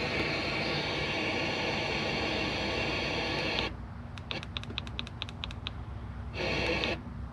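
Radio static hissing from a newly installed radio's speaker, cutting out about halfway through, then a quick run of about a dozen clicks and a short burst of static again, as channels are searched.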